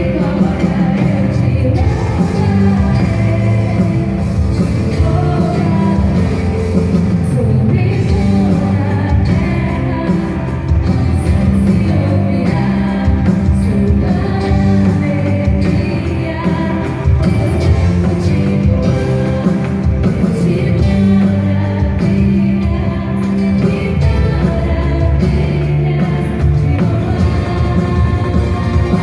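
Upbeat rock-style Christian praise song playing, with a full band and sung vocals.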